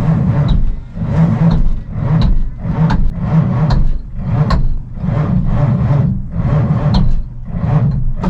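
Electric starter cranking a Cummins 855 diesel, turning it over in uneven, laboured surges without it catching. The engine has swallowed dirt and won't start. The cranking stops at the very end.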